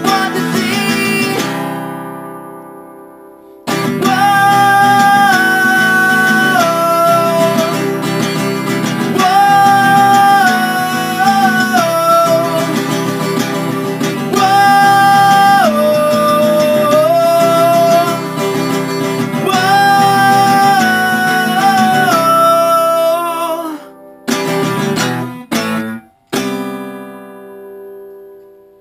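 Acoustic guitar played as a song's instrumental passage, with a wordless melody of held notes stepping up and down over it. A chord fades out, the playing comes back in suddenly about four seconds in, and near the end it breaks into a few short separate strums before a last chord rings out.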